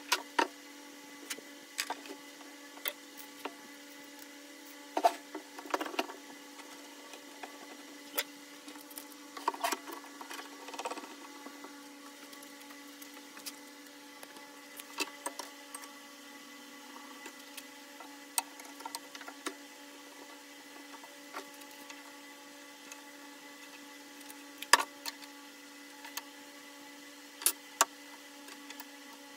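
Irregular clicks and light knocks of wood and hand tools being handled, with louder ones about five, ten, twenty-five and twenty-seven seconds in, over a faint steady hum.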